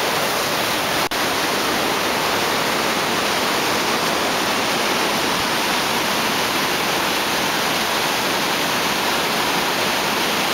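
Whitewater rapids of a mountain river rushing over boulders: a loud, steady rush of water, with a momentary dropout about a second in.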